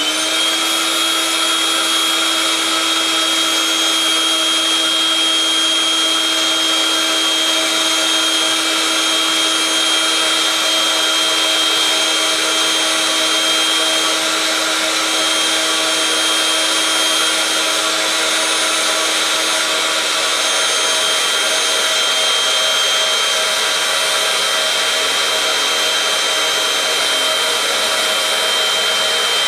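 Electric air pump running at a steady pitch as it inflates an inflatable boat.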